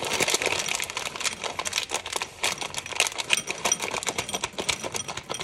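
Chocolate chips pouring from a plastic bag into a small glass bowl: a rapid, uneven patter of many small clicks as the chips hit the glass and each other.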